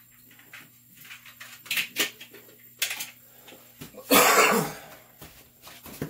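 A few sharp clicks and knocks, then a single loud cough about four seconds in.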